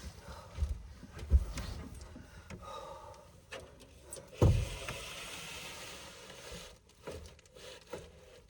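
Knocks, thumps and rattles of a truck camper shell window being pushed and pulled while it is frozen shut with ice. The loudest thump comes about four and a half seconds in, followed by about two seconds of steady hiss, then a few light clicks.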